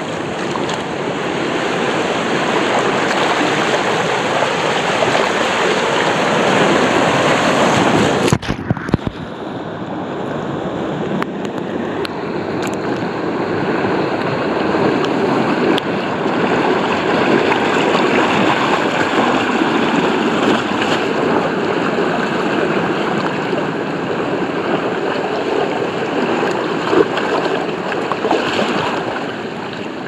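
Rushing, splashing water of a wild-water river slide's rapids, heard from a waterproof-housed action camera at the water surface. About eight seconds in the sound briefly cuts out with a few knocks, then carries on duller.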